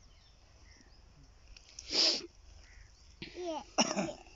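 A person's voice: a short, sharp breathy burst about two seconds in, then brief vocal sounds that glide up and down near the end, over a quiet background.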